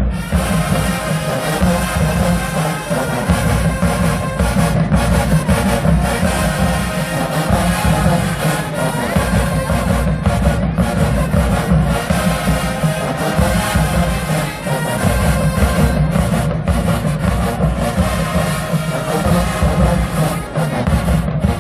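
HBCU marching band playing loudly, with brass and drums.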